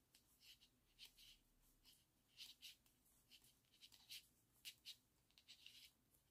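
Faint, irregular light clicks and scratches of knitting needles and yarn as stitches are worked by hand.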